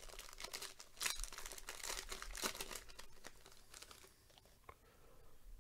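Plastic wrapper of a trading-card pack crinkling and tearing as it is pulled open by hand, the crinkling thinning out in the last couple of seconds.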